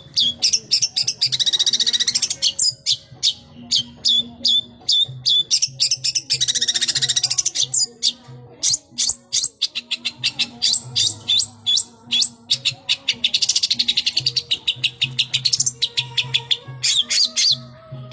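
Long-tailed shrike (cendet) singing vigorously: a rapid, unbroken run of sharp high notes, with dense chattering trills about a second, six seconds and fourteen seconds in. This is the varied song, full of calls learned from other birds, that bird keepers prize.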